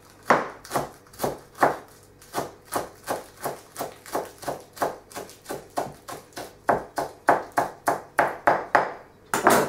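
Kitchen knife finely shredding a rolled-up lettuce leaf on a chopping board: a steady run of chops, about two to three a second, each a sharp knock of the blade on the board, with one louder knock near the end.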